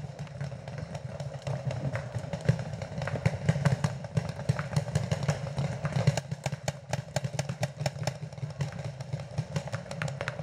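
Paintball markers firing rapid, uneven strings of sharp pops, the shots overlapping throughout, over a steady low hum.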